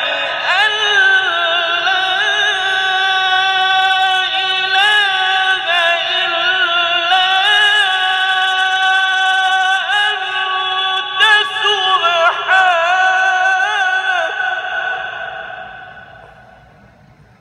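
Man reciting the Qur'an in the melodic mujawwad style, drawing out one long ornamented phrase with wavering, trilled pitch. The voice fades away about two seconds before the end.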